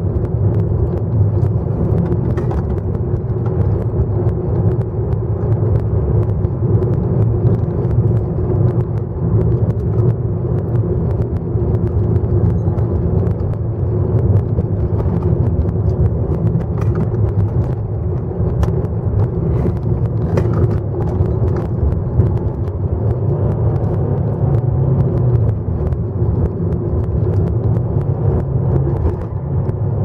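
Nissan Sentra heard from inside the cabin while lapping a race track: steady engine and road rumble with scattered light clicks.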